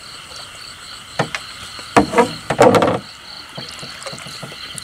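A steady, rapidly pulsing chorus of frogs calling at night, with a few louder splashing strokes of a wooden paddle dipping into the water about a second in and again between two and three seconds in.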